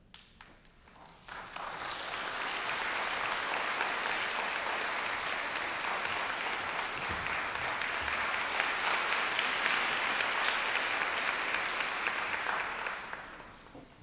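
Audience applauding, swelling up about a second and a half in, holding steady, and dying away near the end.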